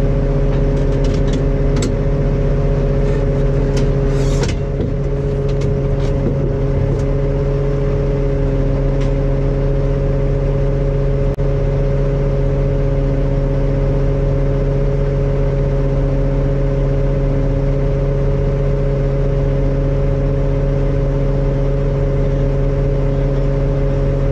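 John Deere road grader's diesel engine running at a steady speed, heard from inside its cab. A few sharp clicks come in the first several seconds, the loudest about four seconds in.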